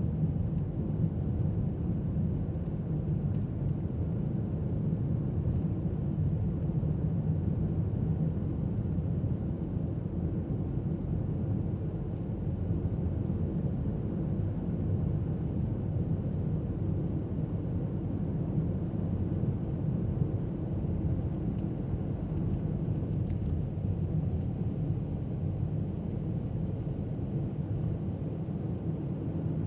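Car driving on a snowy road: a steady low rumble of engine and tyre noise.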